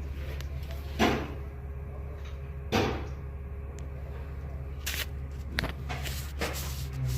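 About six sharp clicks and knocks of parts being handled while working on a car engine, spread irregularly over a steady low hum.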